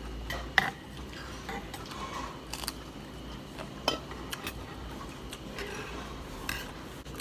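Eating utensils clinking and knocking against a bowl during a meal: a scattering of separate clinks, the sharpest about half a second in.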